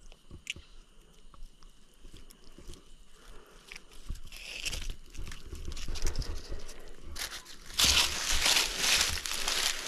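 Irregular crunching and rustling close to the microphone, loud from about eight seconds in.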